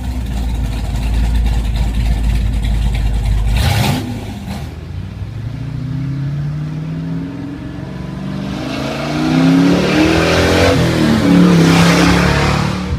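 Chevrolet 454 big-block V8 in a 1971 C10 pickup, running with a deep low rumble, then revved up and down several times in the second half, loudest near the end. A short burst of noise about four seconds in, where the low rumble drops away.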